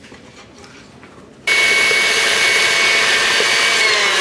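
KitchenAid Artisan stand mixer cutting in abruptly about a second and a half in and running at high speed with a steady whine as its beater whips egg yolks and sugar; the pitch sinks slightly near the end.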